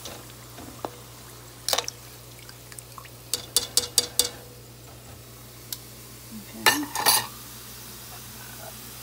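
Utensil clinking and knocking against a cast iron skillet and a plate as deep-fried pork ribs are lifted out of the oil: a clink under two seconds in, a quick run of about five around three and a half to four seconds in, and the loudest clatter about seven seconds in.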